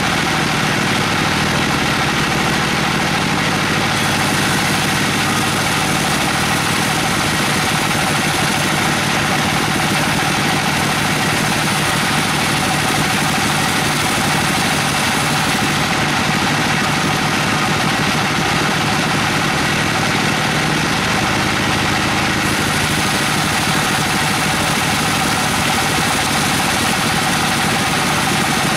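Band sawmill running steadily as a board of Albizia procera (wangkal) timber is fed through the blade.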